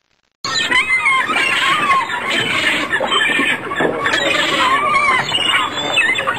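Gulls calling over a fishing boat: repeated rising-and-falling cries over wind and sea noise, after a brief cut to silence at the start.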